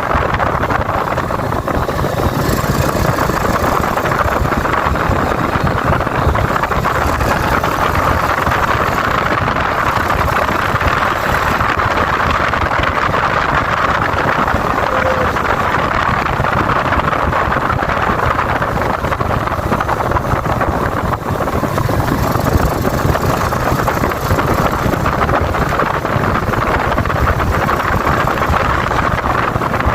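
Stock Yamaha Vega New four-stroke single-cylinder underbone motorcycle engine running steadily while being ridden, mixed with wind rushing over the microphone.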